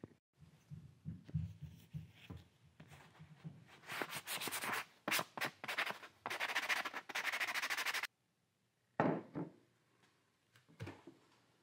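Fine-grit sandpaper rubbed by hand over a small laser-cut cherry wood ornament: quick back-and-forth scratchy strokes for about four seconds that stop abruptly. This is followed by a couple of short handling thuds.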